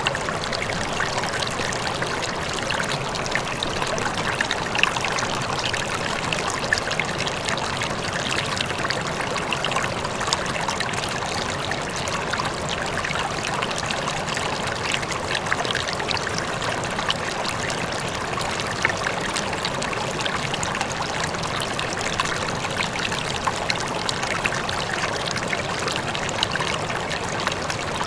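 River water flowing steadily, a continuous rushing and trickling with many small splashes.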